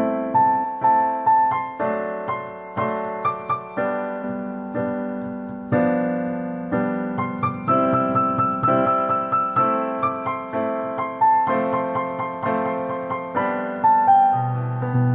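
Background piano music: a melody of struck notes, about two a second, each dying away.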